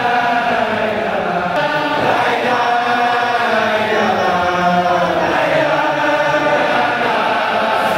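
Men's voices chanting an Islamic devotional chant: one long melodic line drawn out without pause, slowly rising and falling in pitch.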